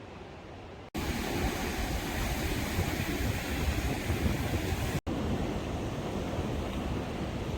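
Rushing wind and sea noise with wind buffeting the microphone, starting abruptly about a second in after a quieter hiss and broken by a sudden cut about five seconds in.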